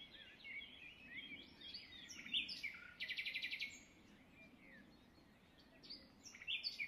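Small birds chirping and twittering faintly over a low background hiss, with a rapid trill lasting under a second about three seconds in and more chirps near the end.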